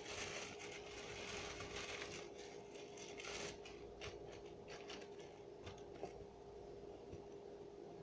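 A cheese wrapper crinkling and rustling in the hands as it is opened, with many small crackles for the first three and a half seconds, then only a few faint handling clicks.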